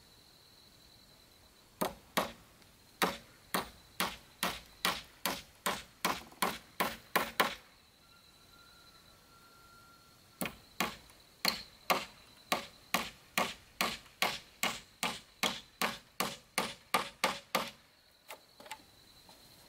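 Hammer driving nails into a wooden beam: two runs of sharp, even blows, about two to three a second, with a pause of a few seconds between them. The first run quickens toward its end.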